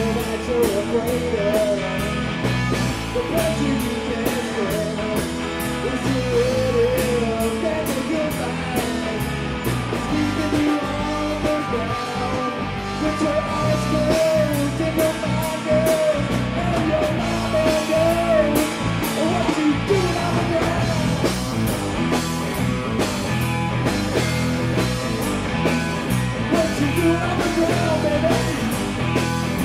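Live rock band playing an instrumental passage: a steady drum beat and bass under a lead line that bends and wavers in pitch.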